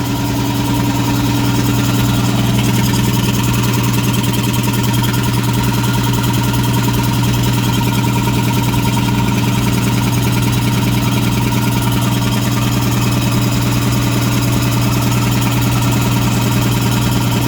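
Homemade air compressor with two two-stage piston pumps driven by electric motors, running steadily with a strong low hum while pumping up its tanks, along with a little spit, sputter and leak.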